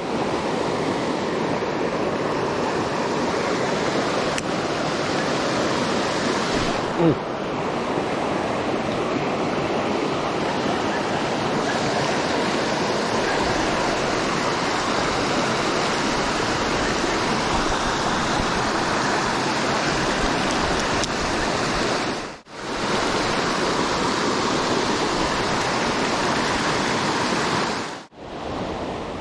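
River rapids: shallow water rushing steadily over rocks, a constant wash of noise. A short sharp sound stands out about seven seconds in, and the rushing drops out briefly twice near the end.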